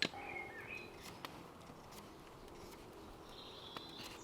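Quiet woodland ambience with a few faint, short, high bird calls and a couple of small clicks of handling.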